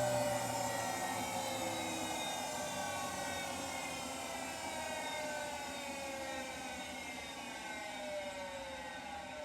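Hotpoint WMFUG942 washing machine winding down from a spin, its motor whine slowly falling in pitch and fading. The motor bearings are worn.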